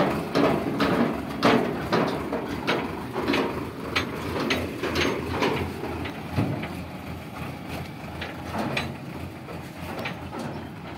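Sonalika DI 750 tractor pulling away with its steel tipping trailer rattling and clanking: irregular metal knocks over a low engine rumble. Both fade as it moves off, the knocks thinning out about halfway through.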